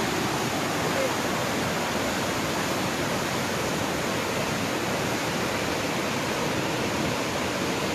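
Fast-flowing floodwater rushing steadily, an even unbroken hiss at a constant level.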